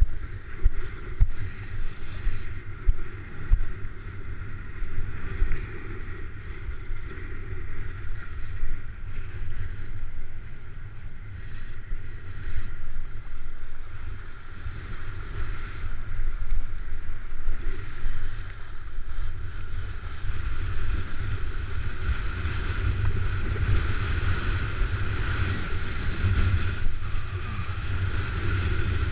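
Wind buffeting the microphone in a steady low rumble, over the rush and splash of water under a kiteboard riding through choppy water.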